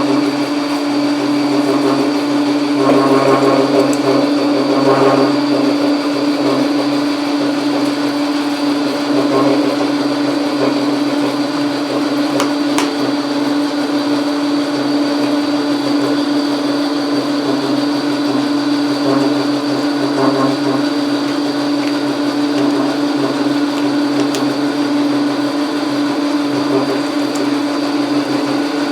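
Logan metal lathe running steadily under power, its motor and gear train giving a strong steady hum, with a little extra rattle about three to five seconds in.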